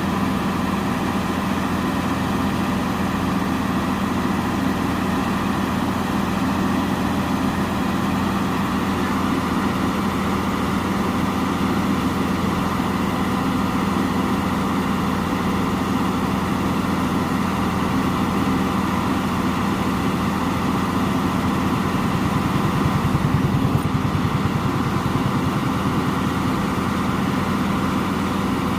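Truck engine running steadily with an even, low hum, growing a little louder briefly about three quarters of the way through.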